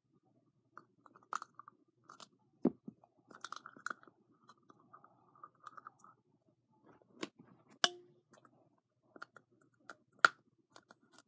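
Irregular small clicks, taps and short crinkling bursts of hands handling plastic slime-making containers, with a sharper click about eight seconds in and another about ten seconds in.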